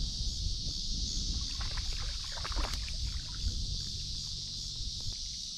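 Steady high-pitched chorus of crickets over a low rumble of water and movement around a fishing kayak, with a short run of light clicks about two seconds in.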